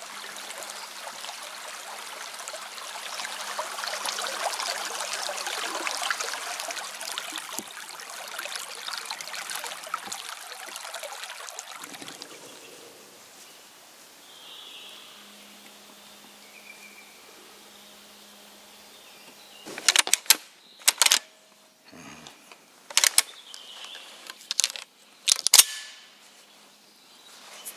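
Semi-automatic shotgun being unloaded: a run of about seven sharp metallic clacks from the action and cartridges, starting about twenty seconds in and lasting about six seconds. Before them comes a steady outdoor hiss full of fine patter, which fades about twelve seconds in.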